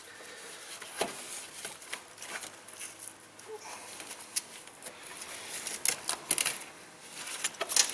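Scattered sharp clicks and rustling of hands and a cutting tool working at a taped car wiring harness to open it up.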